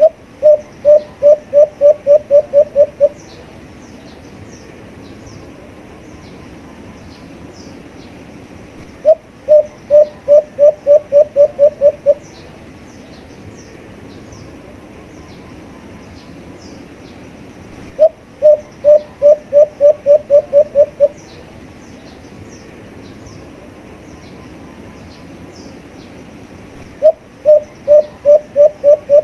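Alimukon dove calling: a run of about ten low, evenly spaced coos, the first set slightly apart, repeated four times about every nine seconds. Faint high chirps of other birds sound behind it.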